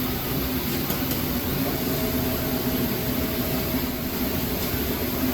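Bead roller running a final pass along a sheet-steel panel edge to close a hem, a steady machine drone with a faint whine and two light clicks about a second in.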